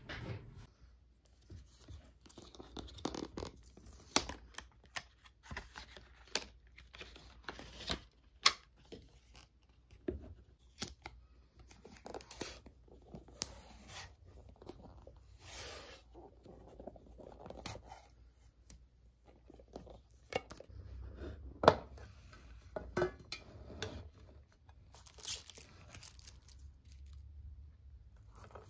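Hands unwrapping and opening a metal cookie tin: tearing and rustling of the wrapping and paper, with scattered sharp clicks and taps of the tin and its lid.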